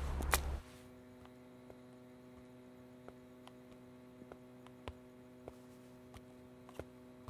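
A steady electrical hum of room tone with faint, irregular ticks scattered through it. In the first half second there is a louder low rumble and one sharp click before the hum takes over.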